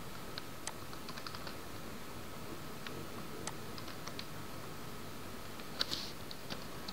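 Faint computer-keyboard typing: scattered key clicks in short runs, over a steady low hiss.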